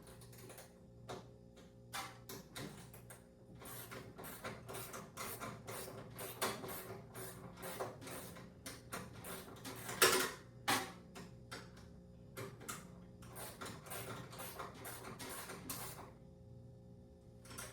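Hand ratchet clicking rapidly while driving bolts on a steel tool cart, with a louder metal clank about ten seconds in.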